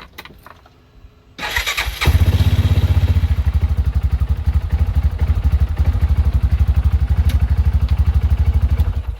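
Cub Cadet Challenger 500 side-by-side's engine cranked by the starter and catching within about a second, then running at a steady idle until it is shut off near the end. It starts with its broken parking-brake safety switch bypassed.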